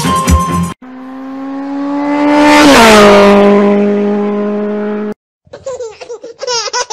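A car speeding past: its engine note and a rush of noise grow louder to a peak about three seconds in, where the pitch drops as it passes, then fade away. Near the end, short, high, wavering squeals follow.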